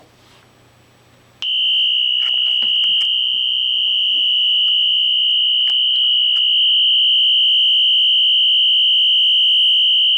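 Function generator imitating a Wheelock NS, ZNS or Exceeder fire alarm horn: one loud, steady, high-pitched tone that starts about a second and a half in and holds without a break.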